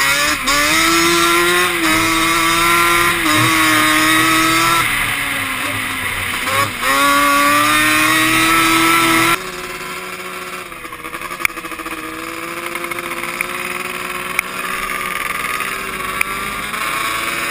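Yamaha Banshee two-stroke twin quad engines running hard, the close one's pitch rising and falling with the throttle. About halfway through, the sound cuts abruptly to quieter, more distant quad engines.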